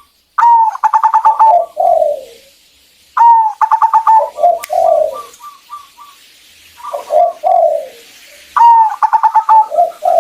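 Zebra dove (perkutut) singing: about four song phrases in a row, each a quick run of clipped notes followed by lower, falling coos, with softer short notes between the phrases.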